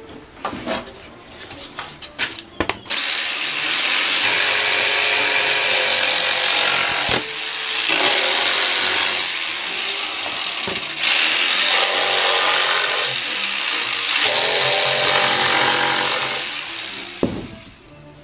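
A few knocks as plywood pieces are handled, then a power tool running loudly on plywood in four long spells with short breaks between.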